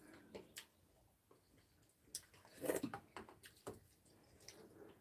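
Quiet eating sounds: a few scattered clicks and knocks of a metal spoon and chopsticks against ceramic and glass bowls, with chewing. The loudest knock comes a little past the middle.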